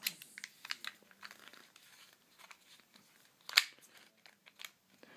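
Light plastic clicks and rubbing as a gas blowback airsoft pistol replica of the Smith & Wesson M&P is handled and set into the polystyrene foam insert of its box, with one sharper click about three and a half seconds in.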